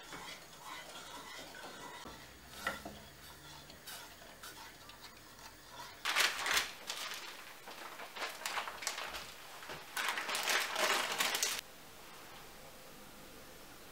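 A wooden spoon stirs milk and sugar in a stainless-steel saucepan, with light scrapes and clicks. About six seconds in, a loud, uneven bubbling hiss starts as the milk boils up in the hot pan, and it cuts off suddenly near the end.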